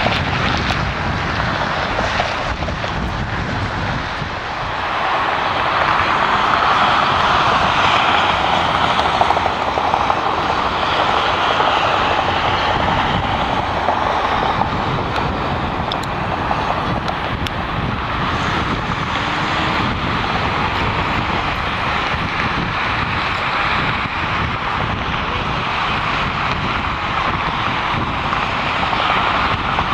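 Jet airliner engines running at a distance across the airport: a steady jet noise that grows louder about five seconds in.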